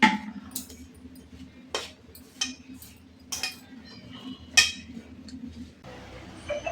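Metal kitchen utensils clinking and knocking against each other: about six sharp, ringing strikes spread over several seconds, with a steady low hum underneath.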